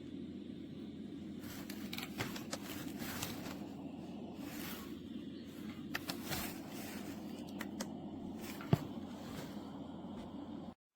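A sleep-sound track played through the sunrise alarm clock's small speaker: a steady low rushing noise with scattered clicks and crackles, stopping abruptly near the end.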